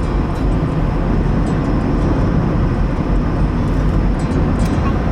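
Steady rumble and road noise of a moving car, with no speech.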